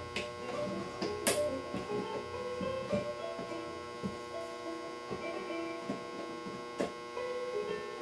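Light clicks and knocks of wood being handled as small wooden strips are hand-fitted into an Ogee clock's glazed door frame, with one sharper click about a second in. A steady electrical hum runs underneath.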